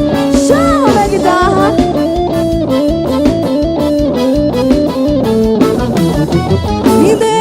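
Forró band playing live, an instrumental intro: a stepping lead melody with a few sliding notes over bass and a steady drum beat.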